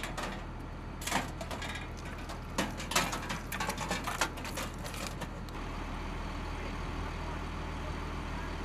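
Linked .50-caliber ammunition belts rattling and clinking as they are handled and fed at a vehicle-mounted machine gun, over the steady low hum of an idling MRAP engine. The rattling stops about five and a half seconds in, leaving the engine hum.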